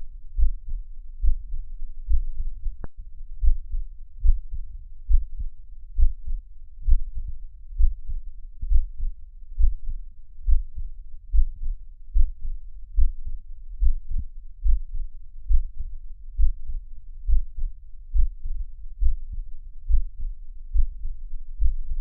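Heartbeat recording: a steady lub-dub of paired low thumps at roughly seventy beats a minute, with a single sharp click about three seconds in.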